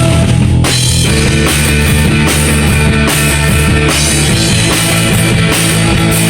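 Live rock band playing with a full drum kit driving a steady beat, with bass and guitars underneath; the cymbals drop out briefly about a second in, then the full band comes back.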